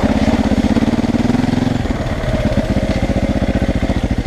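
KTM 450 EXC's single-cylinder four-stroke engine running under throttle, with a brief easing off about two seconds in before it picks up again.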